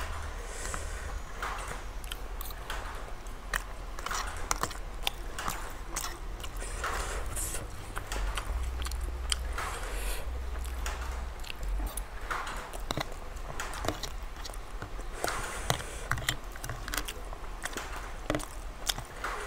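Close-up eating sounds of a man chewing and slurping instant ramen noodles, with repeated small clicks as a metal fork touches a plastic food container.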